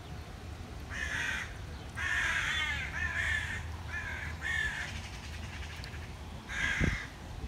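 Harsh animal calls in short repeated runs: one about a second in, a longer string of calls in the middle, and another near the end, over a low background rumble.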